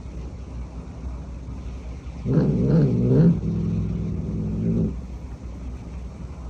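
An animal's low growl starting about two seconds in and lasting about two and a half seconds, wavering at first and then held steadier, over a steady low rumble.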